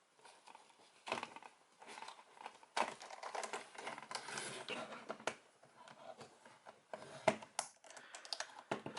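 Hands working a plastic toy belt buckle and its straps: irregular plastic clicks and rustling as parts are pushed into place, with a few sharper clicks about three seconds in and again near the end.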